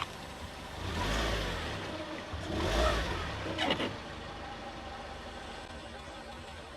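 A car's engine and tyres as it creeps forward, swelling twice, with a short crackle of something being crushed under the wheel about three and a half seconds in.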